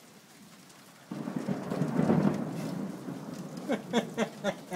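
Thunder: a sudden crack about a second in, then a loud rumble that dies away over a couple of seconds, over a faint hiss of rain. Near the end comes a quick run of short vocal sounds, about four a second.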